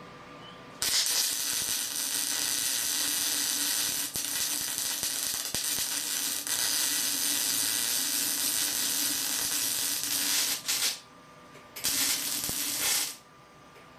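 MIG welder arc burning on steel plate with CO2 shielding gas turned down low, a steady hiss that starts about a second in and runs for about ten seconds, stops, then comes back for a short second burst near the end. The weld runs too hot and burns a hole through the steel.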